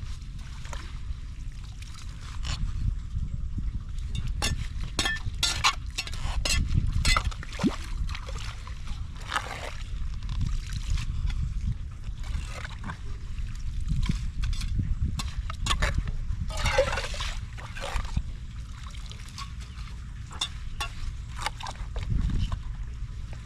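Floodwater sloshing and splashing at a blocked street drain, with a run of short, sharp splashes over a steady low rush of water.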